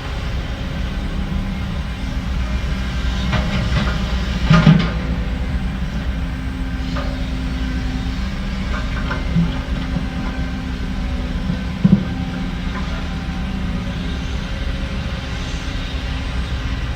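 Diesel engines of heavy earthmoving machinery running steadily, with sharp metallic clanks about four and a half seconds in and again about twelve seconds in.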